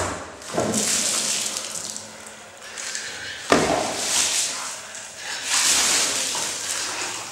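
Liquid gushing and splashing in three surges, each lasting a second or two; the first two follow a sharp knock.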